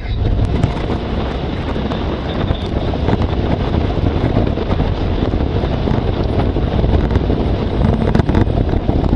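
Wind buffeting the microphone over a steady low rumble of a moving vehicle, heard from on board as it travels.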